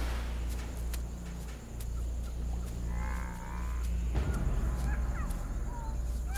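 Animal calls over a steady low rumble: a rasping call about three seconds in, then a series of short chirping calls near the end.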